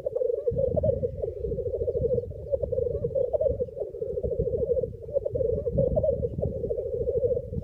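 Chorus of male black grouse rookooing at a lek: several birds' continuous bubbling, cooing song overlapping without a break, over a low rumble.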